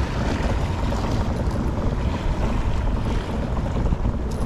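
Steady wind noise buffeting the microphone over the wash of the sea.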